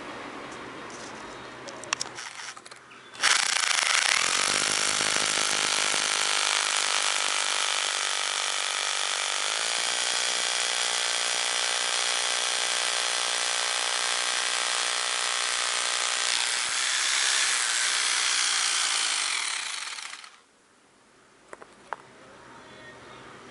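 Einhell TH-RH 800E rotary hammer drilling into stone: it starts about three seconds in, speeds up shortly after and again about halfway through, runs steadily for about seventeen seconds, then stops. A few faint handling clicks come before and after.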